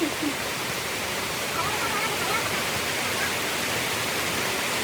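Steady heavy rain hissing, with small birds chirping faintly through it now and then.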